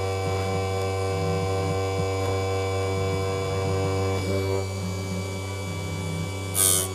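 Electric chainsaw-chain sharpener's motor running freely with a steady hum while the chain is repositioned. Near the end the grinding wheel meets a cutter of the blunt chain with a short, loud grinding rasp.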